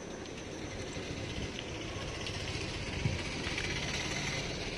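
Street traffic: motor vehicle engines running steadily, with a motorcycle close by.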